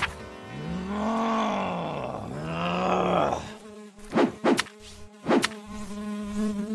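Housefly buzzing sound effect, its pitch rising and falling twice as the fly passes by, followed by three short sharp sounds about four to five and a half seconds in.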